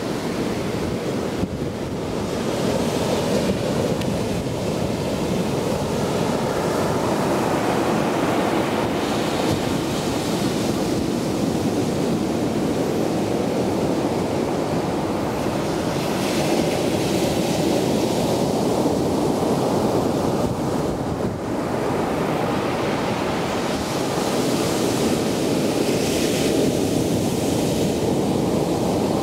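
Heavy surf left by a passing typhoon breaking on the shore: a continuous rumble of churning water, with a fresh breaker surging in with a hiss about every seven to ten seconds. Wind buffets the microphone.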